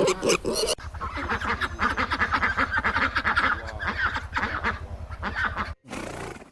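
A flock of farm fowl calling, many overlapping calls at once over a low steady hum, cutting off abruptly near the end.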